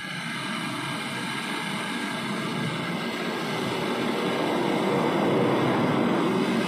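Flame of a handheld butane cartridge torch burning with a steady hiss while brazing a copper pipe onto a refrigerator compressor. It gets louder about two-thirds of the way through.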